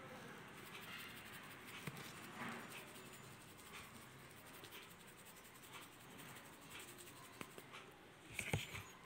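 Faint gritty scraping and crackling as crushed mothball powder is pressed and rubbed against a surface, with scattered small ticks and a brief louder cluster of crunches near the end.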